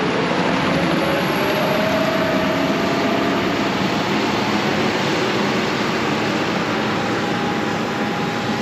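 Self-propelled crop sprayer running as it drives past and away across the field: a steady engine and rushing noise with a faint tone gliding slightly upward early on.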